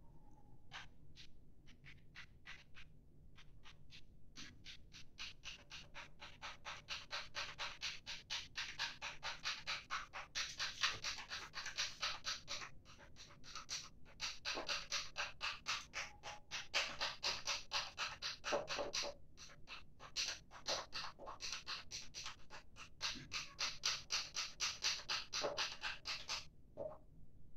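A spatula scraping round a glass beaker as a blue toilet-bowl-cleaner solution is stirred, in rapid even strokes about three a second with a short pause near the end. This is the final mixing after the hydrochloric acid goes in.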